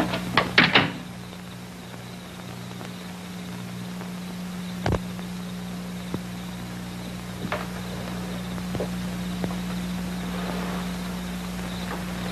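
Scattered clicks and knocks, a quick run of them at the start and one sharp knock about five seconds in, over a steady low hum.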